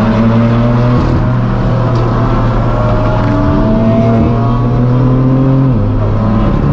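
Straight-piped BMW M4 F82's twin-turbo straight-six (AWE non-resonated track exhaust) running at low revs with a loud, steady drone. Its pitch creeps slowly up, then drops slightly a little over five seconds in.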